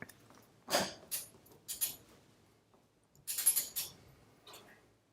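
Torque wrench being worked on a nut on a lubricated 3/8-16 bolt: several short bursts of metallic clicking and clinking, one a quick run of clicks a little past the middle, as the nut is run down.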